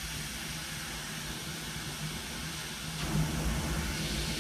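GTT glassblowing torch flame hissing steadily. About three seconds in it grows louder and fuller as the foot pedal opens up the propane and oxygen of the outer fire.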